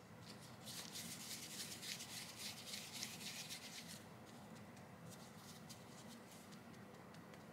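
Floured hands rolling and pressing a soft ball of creamy corn croquette mixture, a soft rubbing crackle of flour and mixture against skin. It is densest for about three seconds, starting just under a second in, then thins to faint scattered crackles.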